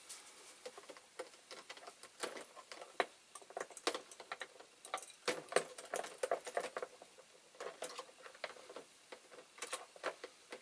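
Hot caustic soda bath fizzing and crackling around the diecast model parts as it strips their paint: irregular small pops and ticks, several a second.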